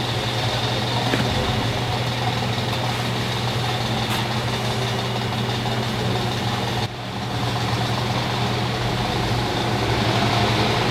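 Steady low mechanical hum of running machinery, heard inside a sailboat's cabin, with a brief dip about seven seconds in.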